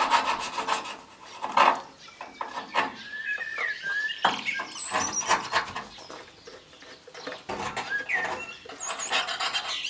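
Small irregular metallic clicks and scrapes from a screwdriver working on a small engine's carburettor as it is fitted back on, with birds chirping now and then in the background.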